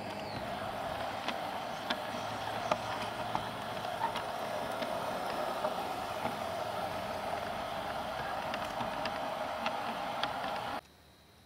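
LGB garden-scale model train running along its track, heard from a wagon in the train: a steady hum of motor and rolling wheels with irregular sharp clicks over the rail joints. It cuts off abruptly near the end.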